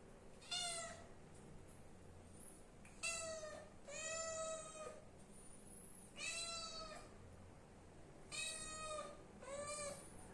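Kitten meowing repeatedly: about six short, high-pitched meows with pauses between them.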